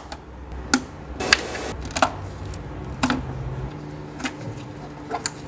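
Sharp plastic clicks and snaps, one roughly every second, with a short scrape about a second in. They come from prying out the safety tabs on the fuel injector electrical connectors with a screwdriver and unplugging the connectors.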